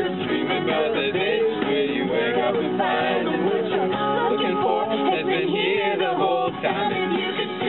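Music with a male voice singing over accompaniment.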